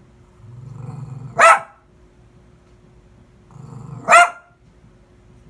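A dog gives a low growl that runs straight into a single loud bark, twice, about two and a half seconds apart.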